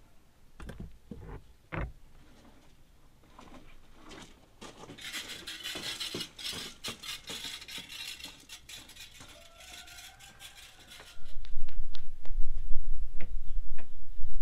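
Rustling and crinkling with many small clicks, then a loud low rumble that starts suddenly about eleven seconds in.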